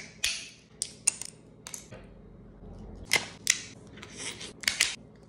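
Shell of a cooked red rock crab being cracked and pulled apart by hand: a string of short, sharp cracks and snaps at irregular intervals, the loudest a little past the halfway point.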